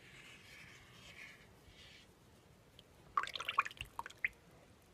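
Thin, separated soap batter of oils and lye, which has fallen out of a false trace, splashing and dripping off a spatula stirred through it in a crock pot. A faint hiss, then a quick cluster of small wet drips and clicks about three seconds in.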